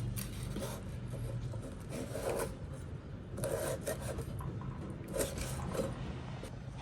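Irregular scraping and rubbing strokes, several in a row, over a low steady hum that fades after the first couple of seconds.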